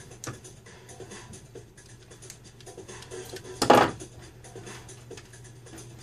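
Hand tools and wires being worked on a harness board: crimpers squeezing terminals onto LS1 harness wires, with small clicks and scratching as wire ends and tools are handled, and one louder scraping clatter a little past halfway. A steady low hum runs underneath.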